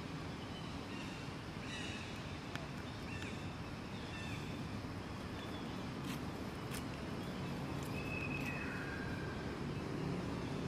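Outdoor ambience: a steady low rumble with scattered short high chirps, a longer falling call a little after the middle, and a few sharp clicks.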